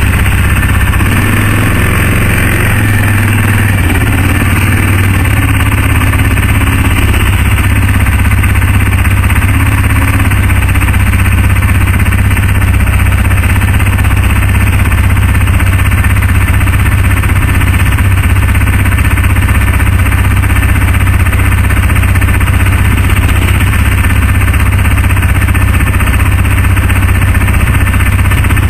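ATV engine running steadily, heard loud and close from the machine's own seat, a constant low hum with no revving.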